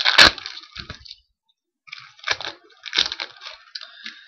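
Crackling and rustling of trading-card pack wrappers and cards being handled, in a few sharp bursts with a brief pause in between.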